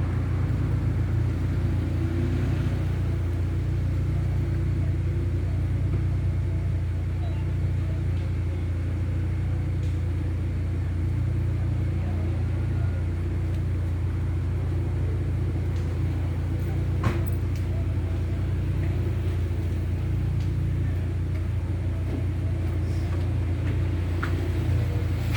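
A steady low rumble, with a single sharp click about seventeen seconds in.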